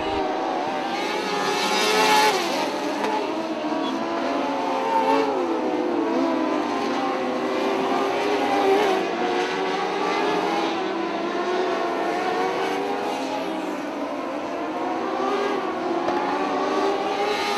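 Several Midwest Mod Lite dirt-track race cars' engines running together at racing speed. Their pitches rise and fall and overlap as the cars go around the oval.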